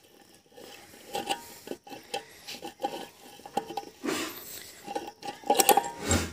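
Steel bearing housing being worked by hand onto a rotavator side-disc shaft: metal scraping and rubbing with light clinks, louder clattering about four seconds in and again near the end.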